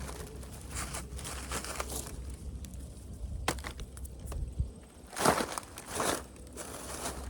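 Footsteps crunching through dry corn stubble, husks and leaves in a harvested cornfield, in irregular crackly bursts with a sharp snap about halfway through and the loudest crunches near the end, over a low steady rumble.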